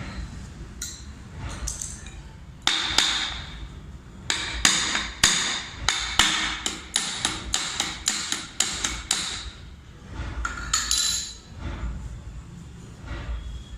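A hammer tapping on a ceiling fan's metal body to seat it squarely: a quick run of sharp, ringing knocks, about two or three a second, starting a few seconds in, with a few more near the end.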